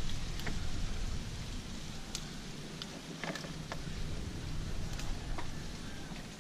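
Hands working a fishing net through waterside plants from a small boat: leaves rustling, with scattered light clicks and small splashes over a steady hiss.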